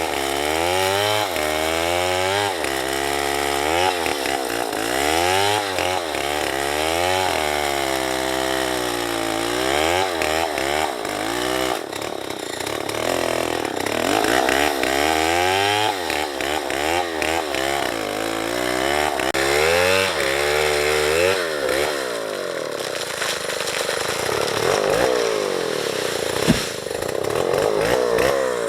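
Small two-stroke chainsaw cutting a tree, its engine speed rising and falling over and over under the load of the cut. A single sharp click near the end.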